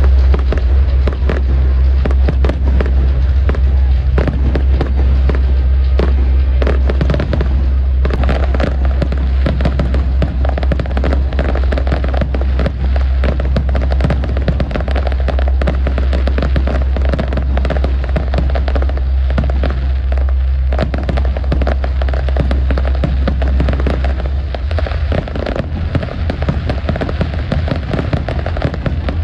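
Aerial fireworks display: a dense barrage of shells bursting, with rapid bangs and crackling one on another throughout, over a deep continuous rumble.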